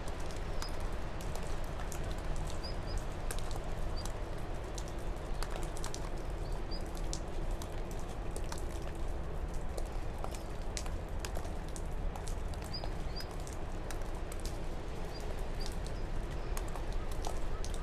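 Crumbs of potting soil pattering onto a metal tray as fingers break up a dracaena's root ball: many small irregular clicks over a steady hiss. Birds chirp faintly every few seconds.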